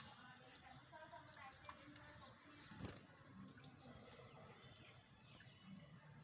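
Faint, busy chirping of small birds, many short calls overlapping, with a single knock about three seconds in.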